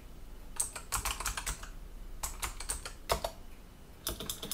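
Typing on a computer keyboard: short runs of quick keystrokes separated by brief pauses, as a terminal command is entered and keys are pressed to page through its output.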